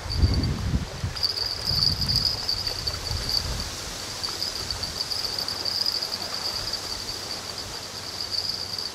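Insects chirring in one steady high-pitched drone. Gusts of wind rumble on the microphone during the first few seconds.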